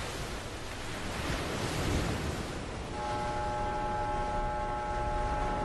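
Rushing sea-and-wind noise that swells about two seconds in, with a steady held musical chord coming in about three seconds in.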